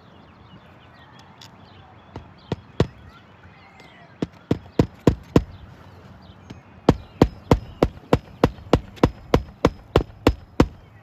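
Hammer blows on a roof, sharp and evenly paced: a few separate strikes, then a run of about five, then a steady run of about fourteen at three to four blows a second.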